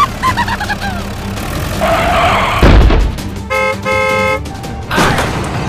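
A heavy thump, then a vehicle horn honking twice in quick succession, with short chirping sound effects early on.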